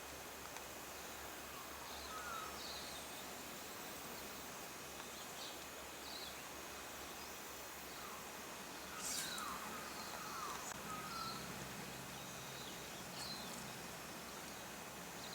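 Small birds chirping: short high chirps scattered throughout, with a louder cluster of calls about nine seconds in, over a steady rushing background.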